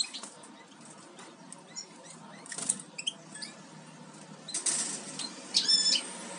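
Caged European goldfinch giving short, high chirps, with a flutter of wings a little under three seconds in and a louder call near the end.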